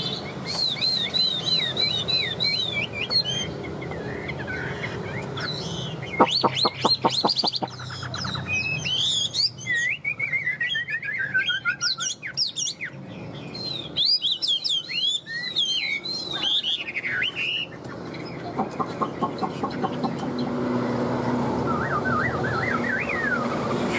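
Chinese hwamei (họa mi) singing a long, varied song: runs of repeated high whistled notes, a rapid trill, and, about ten seconds in, a long falling series of slurred notes. The bird is a tame, cage-accustomed songbird singing freely.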